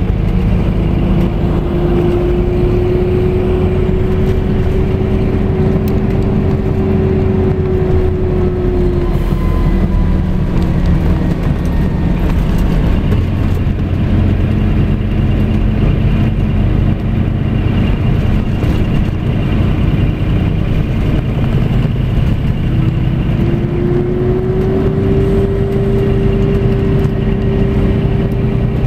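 Scania coach running at cruising speed, its engine drone and road noise heard from a seat near the rear of the passenger cabin. A steady whine rides over the rumble, fading out about a third of the way in and coming back near the end.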